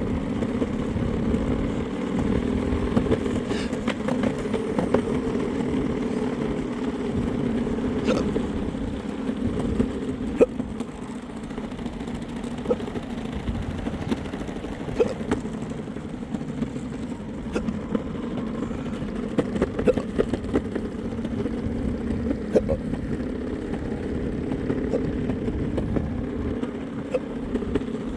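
Steady engine and road noise of a moving vehicle, an even hum over a low rumble, with short sharp clicks or knocks scattered through it.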